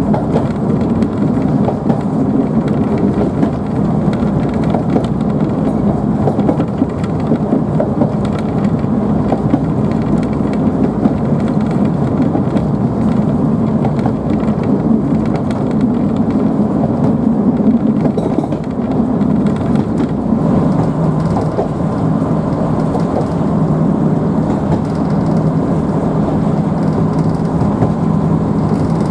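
Cabin noise of a Class 117 diesel multiple unit on the move: the steady drone of its underfloor diesel engines mixed with the rumble of wheels on the rails. The engine note settles slightly lower about twenty seconds in.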